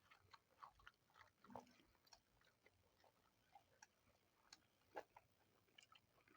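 Faint close-up chewing and mouth sounds of a person eating, a scatter of soft irregular clicks, the loudest about five seconds in.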